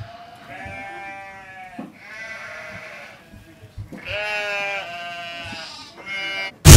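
A child imitating a ram's bleat, about four drawn-out 'baa' calls in a row. A sudden loud burst of noise cuts in at the very end.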